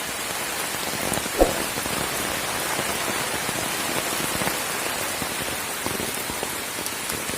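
Steady heavy rain falling on surfaces, with many small drop ticks and one louder knock about a second and a half in.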